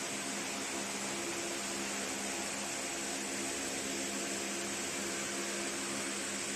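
Desktop fiber laser marking machine running: a steady hum with an even hiss over it.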